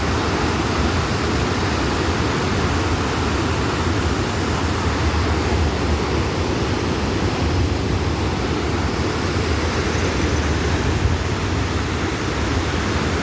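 Small waterfall: a steady, even rush of falling and splashing water.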